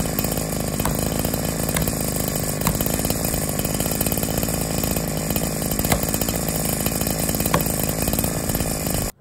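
A chainsaw running steadily while cutting into a tree trunk, with a few sharp ticks over the engine. It cuts off suddenly near the end.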